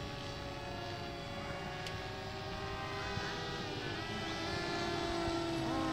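Several electric radio-control model airplanes flying together, their motors and propellers whining in overlapping steady tones. Some of the tones slide up and down in pitch, and the sound grows a little louder toward the end.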